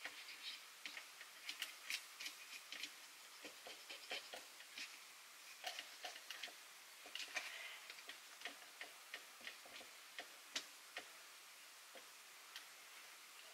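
Faint, irregular small clicks and ticks of fingers handling the opened plastic-and-metal tape mechanism of a Philips N2234 cassette recorder.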